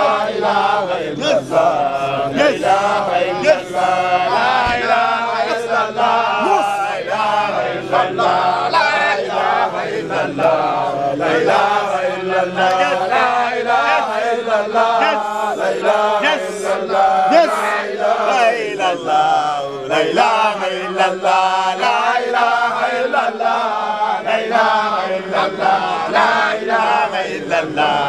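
A group of voices chanting together without a break, a Sufi devotional chant in praise of the sheikhs.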